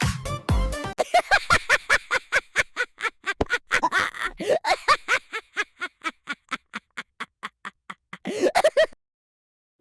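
High-pitched, sped-up cartoon Minion voice giggling or chattering in rapid short syllables, about six a second, that cut off suddenly near the end.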